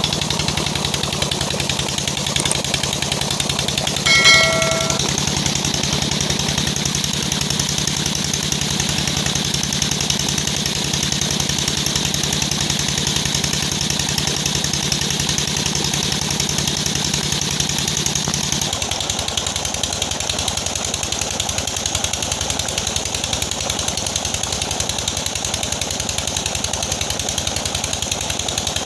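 Repaired Peter-type stationary diesel engine running steadily after starting, with a fast, even knocking beat. About four seconds in, a brief high pitched tone sounds over it, and about two-thirds through the engine's note changes.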